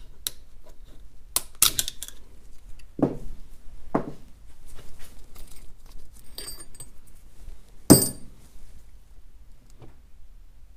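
Steel transfer-case parts and hand tools clicking, clinking and knocking together during hand disassembly of an NP208 transfer case. There is a ringing metallic clink about six and a half seconds in and a louder knock with a ring near eight seconds.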